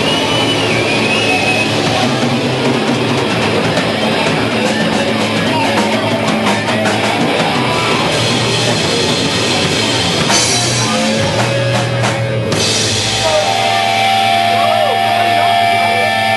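Hardcore/crust punk band playing loud and fast, with distorted guitar, bass and pounding drums and crashing cymbals. Near the end the drumming drops away and held, ringing guitar tones carry on as the song winds down.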